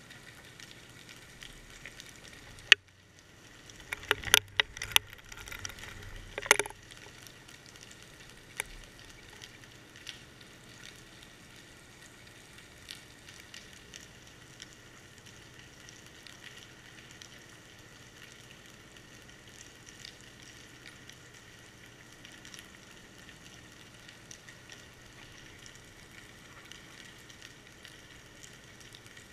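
Underwater sound through a GoPro's waterproof housing on a fishing line: a steady fine crackling hiss with a faint low hum. A sharp knock comes about three seconds in, then a cluster of louder knocks between about four and seven seconds.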